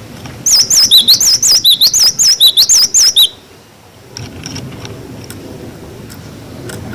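Glatik batu (cinereous tit) singing its 'wucit wucit' song: a quick run of about ten loud, wavering high whistled notes lasting about three seconds, then stopping.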